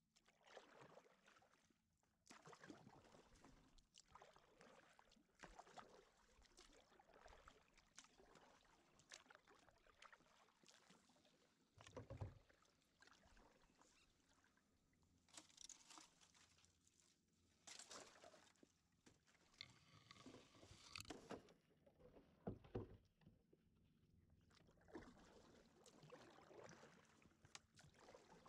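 Faint kayak paddle strokes, the blades dipping and splashing in the water about every second and a half to two seconds, with a couple of duller low knocks.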